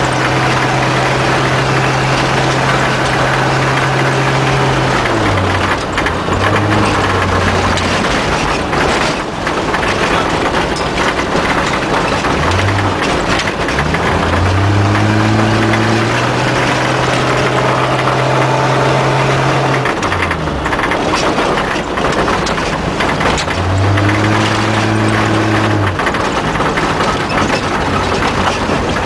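A vehicle's engine heard from inside the cab while driving a rough dirt track. It holds steady revs for stretches, then drops off and picks up again several times, under a constant rattle of the cabin with occasional knocks from the rough ground.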